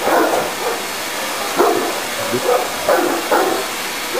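Tosa inu dog giving about five short barks and yips, over the steady whoosh of a running vacuum cleaner.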